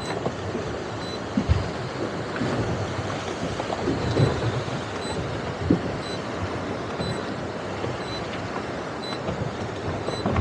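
Wind buffeting the microphone over the engine and water noise of a center-console boat moving slowly through choppy water, with a few low thumps. A faint short high beep repeats about once a second.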